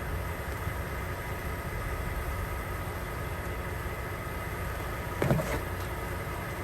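Steady low hum of a truck engine idling, with one short sharp knock about five seconds in.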